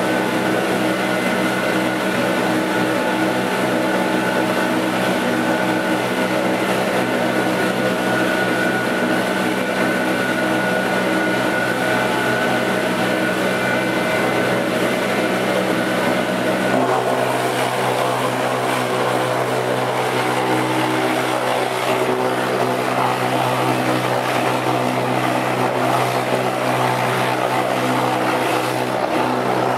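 50-litre bowl cutter running steadily, its knives chopping chicken meat, fat and skin into a fine emulsion as the bowl turns. Its hum changes a little over halfway through.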